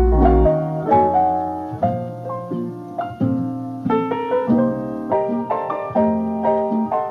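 Background music led by a piano playing a melody of struck notes, several a second; a deep bass note drops out about half a second in.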